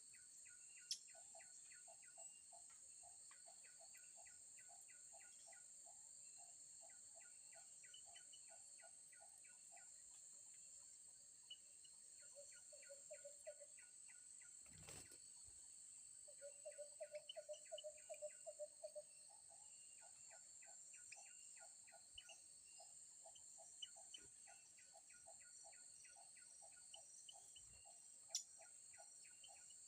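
Faint natural ambience: a steady high insect buzz, with birds calling in quick, evenly repeated note series. A single soft knock about halfway through.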